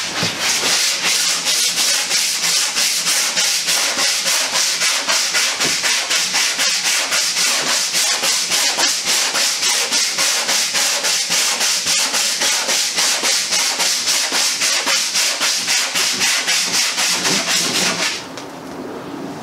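Long hand sanding block with sandpaper rasping back and forth over cured Total Fair epoxy fairing compound on a wooden boat's bow, in quick, even strokes. It stops near the end.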